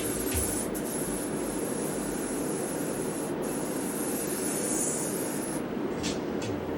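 Steady hiss of air forced through the plastic check valve and air tubing of a self-burping bucket, cutting off about five and a half seconds in. The hiss of air coming out is the sign that the bucket is pressurizing and venting.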